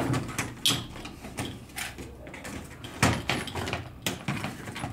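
Tools being handled for removing the nuts on a hydropneumatic tank's cover: a few scattered sharp clicks and knocks.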